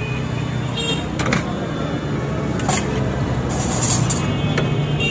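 Busy street traffic noise with a steady low engine hum, and a few sharp clinks of a steel ladle and utensils against steel cups and jars.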